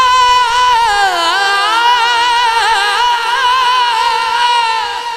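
A man singing a manqabat into a microphone with no accompaniment, holding a long high note that he bends through ornamented, wavering runs.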